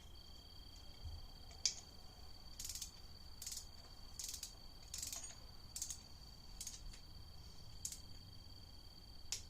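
Torque wrench clicking on the water pump bolts being tightened to 16 foot-pounds: about nine sharp, separate clicks, roughly one a second. A faint steady high whine runs underneath.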